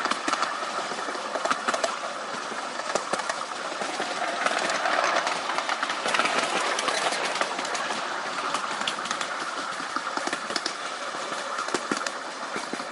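Miniature railway train in motion behind a model electric locomotive: wheels clicking irregularly over the rail joints, over a steady whine, a little louder around the middle.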